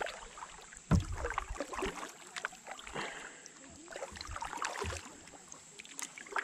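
Kayak paddle strokes: the blades dipping into the water and dripping, in an uneven rhythm, with a sharp thump about a second in.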